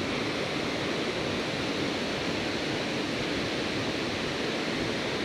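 Steady, even rushing of a waterfall plunging into a pool.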